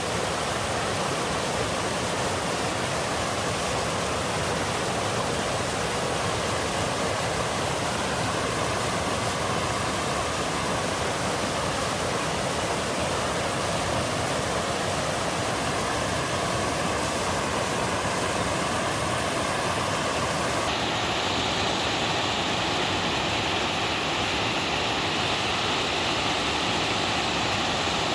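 Water pouring down a three-tiered, moss-covered waterfall in a mountain stream: a steady rushing and splashing. About 21 seconds in, the rush changes abruptly to a brighter, hissier sound.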